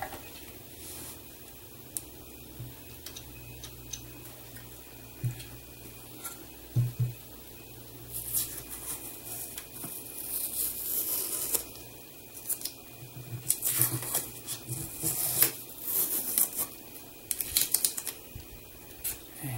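Blue masking tape being peeled off the trunk lid of a scale model car: a high rasping, tearing noise in short stretches in the second half, the longest a few seconds long, mixed with small clicks and taps as the model is handled.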